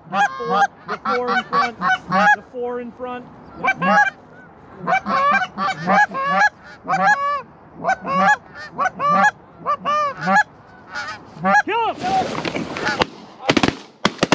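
Canada goose honks and clucks, many short calls in quick succession. About two seconds before the end comes a second of rushing noise, then a few sharp cracks.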